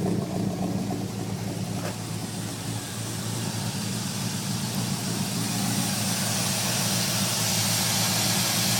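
Off-road truck's engine idling steadily, with a hiss that grows louder from about halfway through.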